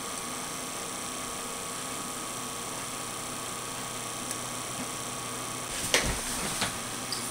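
Steady electrical mains hum with a faint hiss, and a brief handling rustle about six seconds in.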